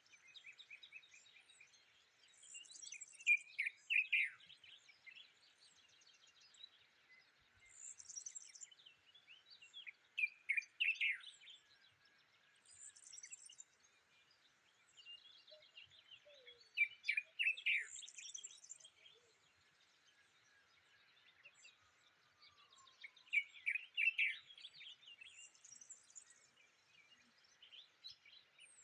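A songbird, the bird known in Tashelhit as tabarghla, singing short phrases of quick falling notes mixed with thin high notes, about every five seconds, over a faint steady background hiss.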